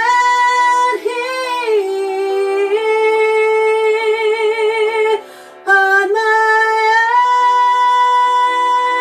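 A woman singing long held notes with vibrato over quiet backing music, with a short break for breath about five seconds in.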